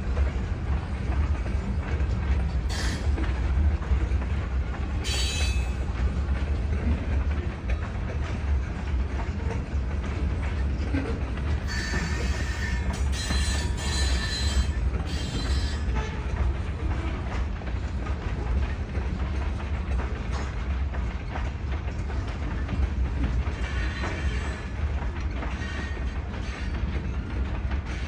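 Freight cars of a slow Toledo, Peoria & Western train rolling past with a steady low rumble. Short high-pitched wheel squeals come about 3 and 5 seconds in, and again several times from about 12 to 16 seconds in.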